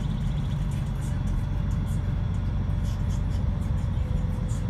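Scania K124 coach's rear-mounted six-cylinder diesel engine and road noise, heard from inside the cabin of an Irizar PB coach as a steady low rumble. Light ticks and rattles from the interior are scattered through it.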